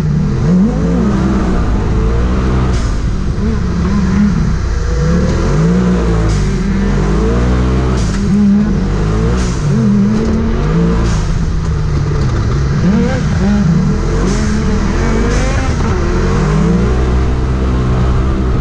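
Several side-by-side UTV engines racing on a dirt track, the throttle opening and closing every second or two so the engine pitch climbs and drops over and over, with more than one engine heard at once. A few short sharp clicks are heard among the engine sound.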